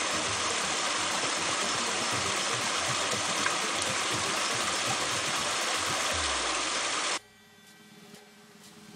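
Small stream cascading over mossy rocks in a little waterfall: a steady rush of falling water. It cuts off abruptly about seven seconds in, leaving faint music.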